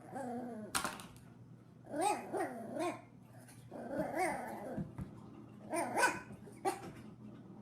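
A dog barking and vocalizing in four short bouts of bending, wavering calls, with a couple of sharp clicks between them.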